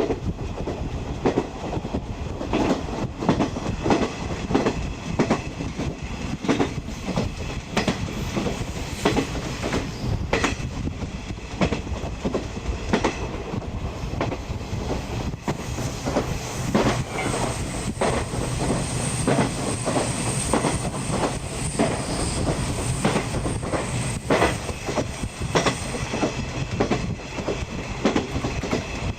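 Wheels of a 50-series passenger coach running over jointed rail, a steady rumble broken by frequent clickety-clack knocks. A thin high whine joins for several seconds past the middle.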